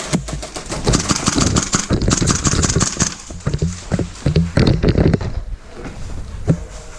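A player running in full kit: fast, irregular footfalls with gear clattering and knocking against a body-worn camera.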